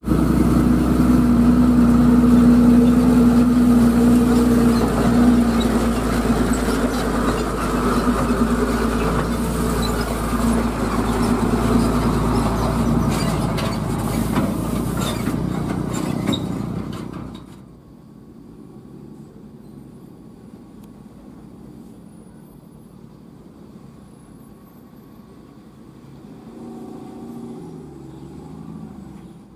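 Diesel engine of a Hino dump truck running under load on a dirt track, loud and steady. About 17 seconds in it cuts off abruptly, leaving a faint distant engine that grows louder near the end as another truck approaches.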